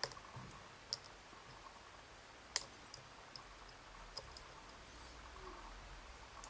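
Faint, irregular clicks and ticks of a lock pick working the pin stack inside a Bricard Mistral S lock cylinder while trying to set a pin. Half a dozen small clicks come spaced a second or so apart, with a few closer together.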